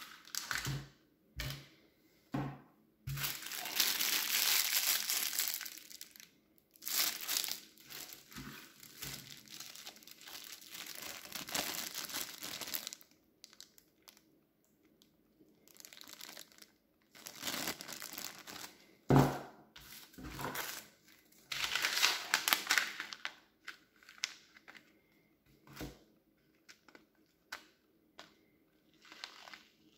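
Plastic wrappers and foil packets from a military ration pack being handled and crinkled, in several stretches of rustling. A few short sharp knocks come through, the loudest about nineteen seconds in.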